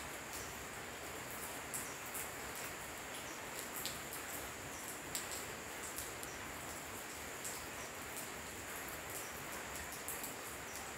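Night insects trilling: one steady, high-pitched note held throughout over a soft hiss, with scattered light ticks.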